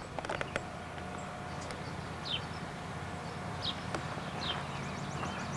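Outdoor birds chirping: short, falling chirps about every second, with a quick trill near the end, over a steady low hum. A few light clicks near the start.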